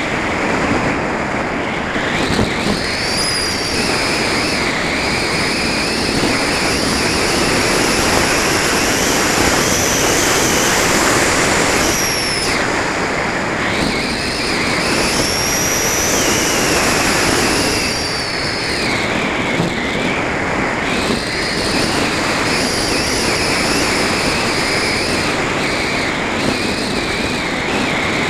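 Steady rush of wind over the onboard camera of a Multiplex Heron RC glider in flight, with a high whine that rises and falls in pitch several times.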